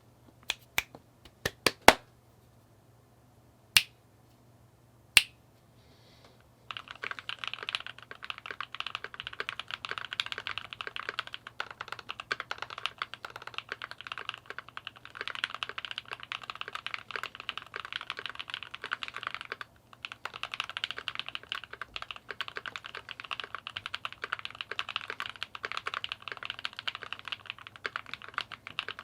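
Keychron Q2 mechanical keyboard with DuRock Korbs switches, aluminium plate and GMK keycaps being typed on. A few single, separate keystrokes come first, then about seven seconds in steady fast typing begins and runs on, with one short break in the middle.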